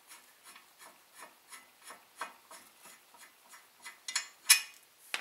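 Light, regular clicking, about three a second, as the already-loosened 17 mm caliper mounting bracket bolts are backed out on a car's front brake. A few louder, sharper metal clinks come about four seconds in.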